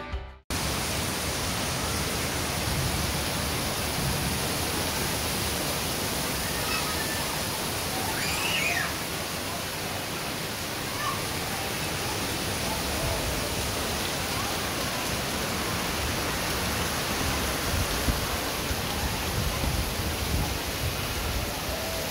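Steady rain falling, an even hiss with no letup, after a music track cuts off right at the start.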